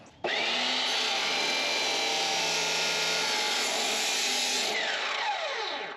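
Abrasive chop saw cutting through steel square tubing, a loud steady grinding whine. Near the end the blade is released and its pitch falls as it spins down.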